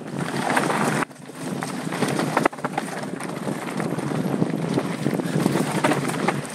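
Mountain bike running fast down a dirt singletrack: wind buffeting the camera microphone over the rush of the tyres on loose dirt, with frequent clicks and knocks from the bike rattling over bumps.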